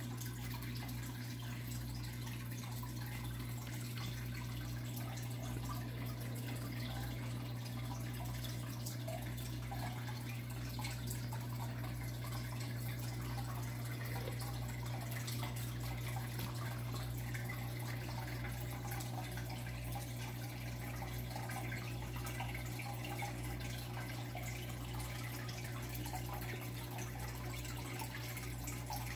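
Aquarium water bubbling and trickling steadily, from the tank's filter and air bubbler, over a steady low hum.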